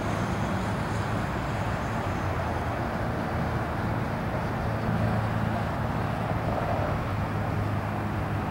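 Steady low rumble of distant road traffic, even throughout with no sharp sounds.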